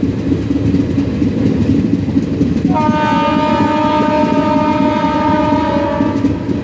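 Moving train running on the rails with a steady rumble, heard from aboard. About three seconds in, a train horn sounds one long, steady blast lasting about three and a half seconds, then stops.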